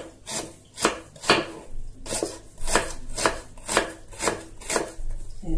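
Kitchen knife chopping onion on a wooden cutting board, even strokes about twice a second.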